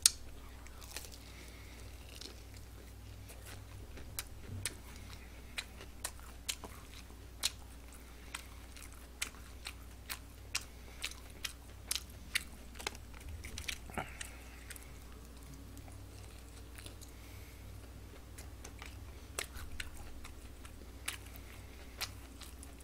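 Close-miked chewing and biting of crispy fried chicken wing, with sharp, irregular crunching clicks about once or twice a second over a faint low hum.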